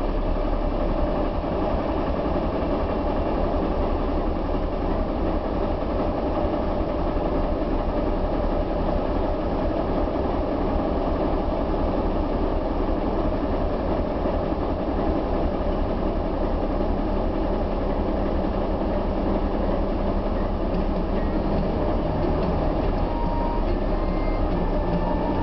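Diesel locomotive idling with a steady rumble, heard from inside a car.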